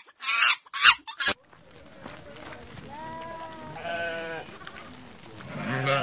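Sheep bleating: drawn-out calls about three seconds in, another just after four seconds, and a rising one near the end, over soft outdoor background noise. Before them, a second and a half of loud, quick animal calls cuts off abruptly.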